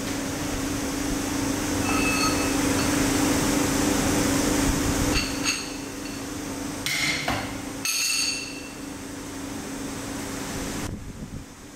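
Tensile testing machine running with a steady hum while it pulls a deformed steel rebar held in a coupler. About halfway through come several sharp metallic pings and clinks that ring briefly, in three short clusters a second or so apart.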